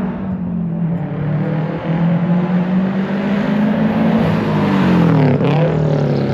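2005 Subaru STI's turbocharged 2.5-litre flat-four running loud through a freshly fitted Tomei Expreme Ti titanium exhaust with a catless downpipe. It holds a steady fast idle that edges up a little, then gives a quick throttle blip about five seconds in.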